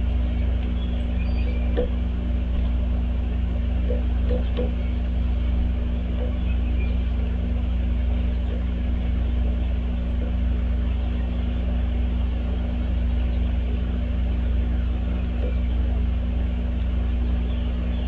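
Steady low rumble with a constant hum under it, and a few faint short taps about two and four seconds in.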